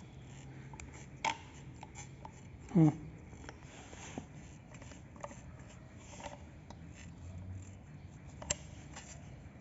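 Rubber control-arm bushing of a 2015 Chevrolet Onix's suspension creaking in faint, scattered short squeaks and clicks as the suspension moves; the bushing is torn, the cause of the creaking.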